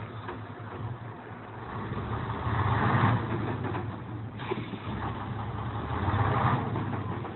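Truck engine running, swelling louder twice: about three seconds in and again around six seconds.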